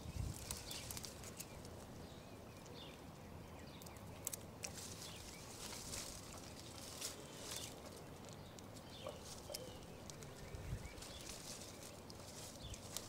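Honeysuckle foliage rustling and crackling in short, scattered snatches as a capuchin monkey pulls blossoms off the vine, with a few faint high chirps now and then.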